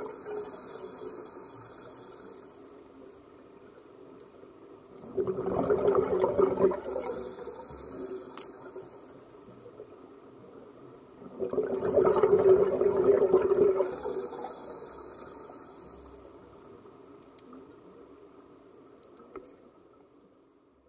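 Scuba diver breathing underwater through a regulator: a hiss of inhalation, then a bubbling gush of exhaled air, repeating about every six seconds, twice, then fading out.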